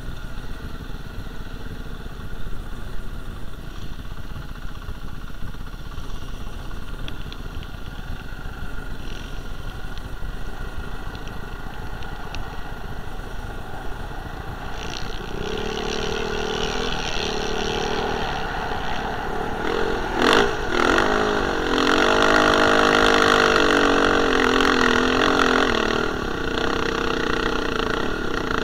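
Off-road motorcycle engine heard from the rider's own bike, with wind rumbling on the microphone. About halfway through the engine revs up and holds high revs as it climbs a sand slope, with a sharp knock shortly before the loudest stretch.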